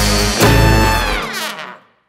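Background music ends on a final struck chord about half a second in, which rings and fades out to silence near the end.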